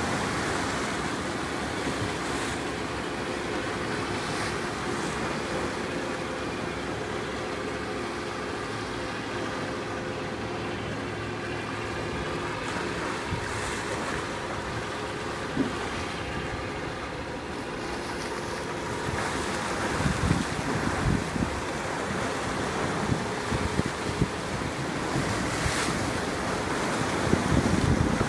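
Waves washing and wind on the microphone over the steady hum of a passing shrimp trawler's engine. Heavier wind buffeting sets in about two-thirds of the way through.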